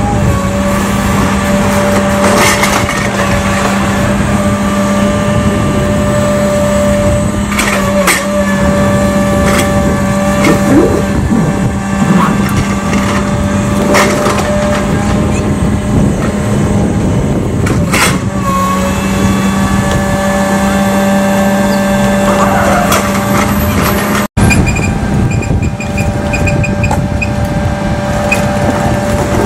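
Liebherr demolition excavator's diesel engine running steadily under load. Over it come a handful of sharp crashes and clatters of bricks and rubble as the grab works the pile.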